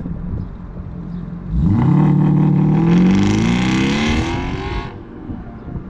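A car engine revving up under acceleration: its pitch rises steadily for about three seconds from about a second and a half in, then cuts off abruptly.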